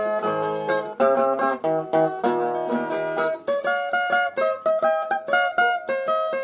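Brazilian viola, a steel-strung ten-string folk guitar, playing a solo instrumental passage of quickly picked melody notes over a bass line.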